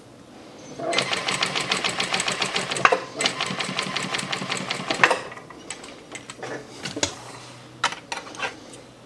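Domestic sewing machine stitching a row of long basting stitches for gathering: a rapid, even run of needle strokes that starts about a second in, dips briefly about three seconds in and stops about five seconds in. A few single clicks follow later.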